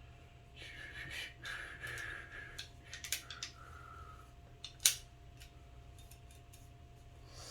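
Metal handling noise of Glock pistol parts being put back together: scraping and rattling for about two seconds, a few clicks, then one sharp metallic click about five seconds in.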